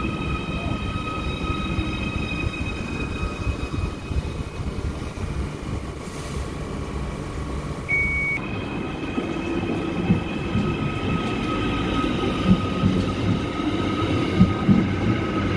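Merseyrail Class 777 electric multiple unit at the platform, giving a steady high electric whine over a low rumble, with a short beep about eight seconds in. In the second half, knocks from its wheels over rail joints grow louder as it gets under way.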